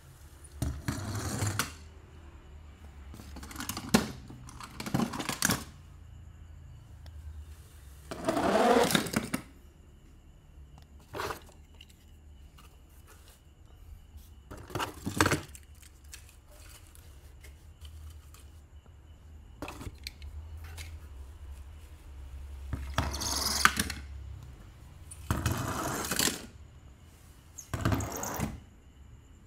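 Small die-cast metal toy cars being handled: about nine separate short scrapes, clinks and rustles as they are taken out of a cardboard box and set down, the longest lasting about a second.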